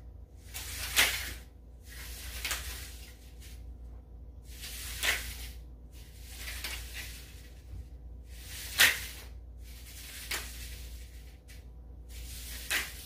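A person doing reverse V-ups on exercise sliders: seven short swishes, roughly every two seconds, as the feet are drawn in to a pike and pushed back out to plank.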